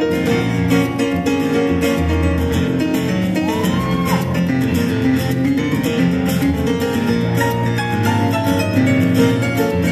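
Live folk-song instrumental break: acoustic guitar played along with a second accompanying instrument, with no singing.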